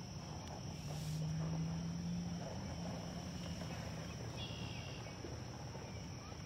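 Quiet outdoor ambience: a steady high-pitched insect drone over a low background rumble.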